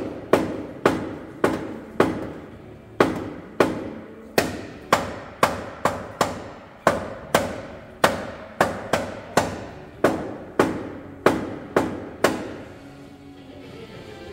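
Hand hammer striking metal on a crash-damaged car's front end, about two sharp, ringing blows a second in an uneven rhythm, stopping about twelve seconds in.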